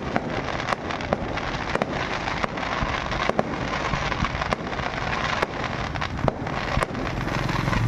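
Fireworks display: a continuous crackle of bursting shells with sharp bangs coming irregularly about once a second.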